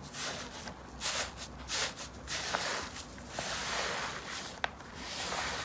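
Crumbly blue slime being squeezed and pulled apart by hand, giving a series of crunchy, crackling swells, one longer stretch in the middle, with a few sharp crackles.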